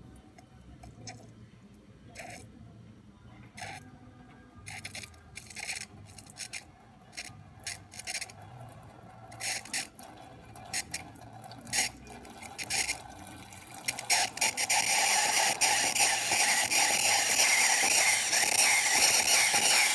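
Rancilio Silvia espresso machine's steam wand being opened: scattered sharp pops and spits at first, then, about two-thirds of the way in, a steady loud hiss of steam with good pressure.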